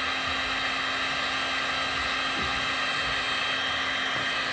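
Electric heat gun running on its highest setting: a steady whine and rush of air from its fan, as it heats a heat-shrink solder seal connector until the solder ring melts.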